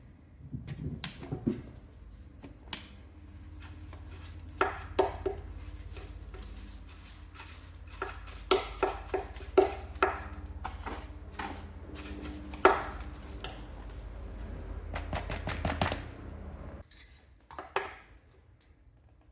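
A string of sharp knocks and taps from hand-tool work, irregular and of varying strength, over a low steady hum that cuts off suddenly near the end.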